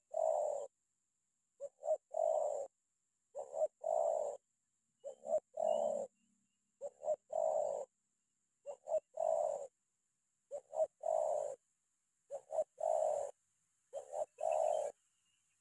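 Spotted dove (terkukur) giving the rapid 'tekanan' coo used in dove trapping: a phrase of two or three quick notes ending in a longer coo, repeated about every two seconds, nine times.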